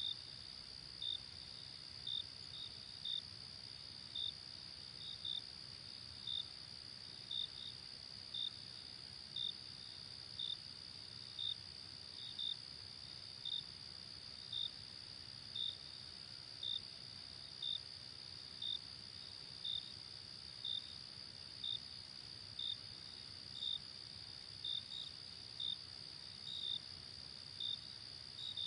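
Crickets at night: a steady, high-pitched trill, with a louder short chirp repeating about once a second over it.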